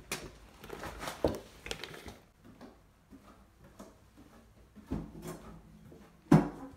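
Scattered short knocks and thumps in a small entryway: a cluster of light knocks in the first two seconds, then a thump about five seconds in and a louder, sharper thump near the end.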